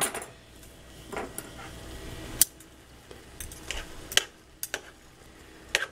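Kitchen tongs clinking against a frying pan and a bowl while noodles are broken up and served: about six sharp clicks spread over several seconds, the loudest about two and a half seconds in.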